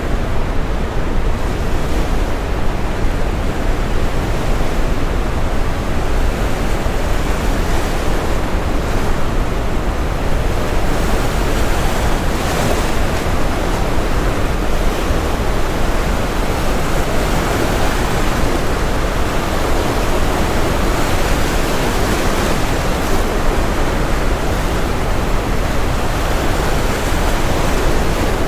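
Brown noise, a steady deep hiss, mixed with ocean surf breaking and washing. The surf's higher hiss swells up from about ten seconds in and eases off again near the end.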